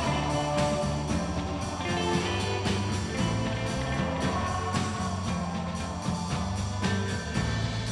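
Background music: a rock tune with guitar, bass and a steady drum beat.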